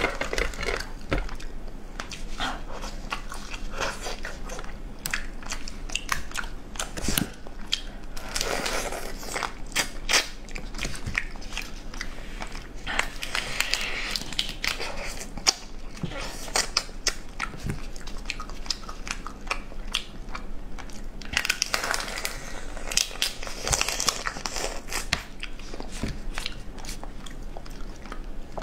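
Eating a steamed swimming crab: shell cracking and crunching as the body is pulled apart and bitten, with chewing, in many short sharp cracks throughout.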